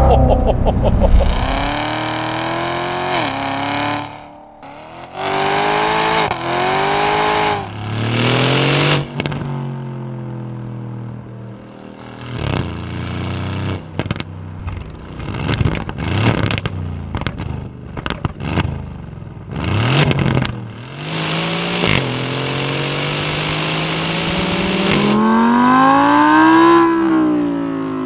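V8 sports-car engines accelerating hard through the gears: first the Chevrolet Corvette C7 Z06's supercharged V8, then the Aston Martin Vantage's twin-turbo V8. The engine pitch climbs and drops back at each upshift, with a run of sharp exhaust cracks between pulls in the middle, and near the end one long rev rises and falls away.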